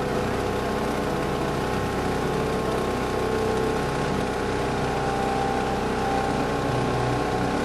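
Tour boat's engine running steadily, an even drone with a stack of steady tones.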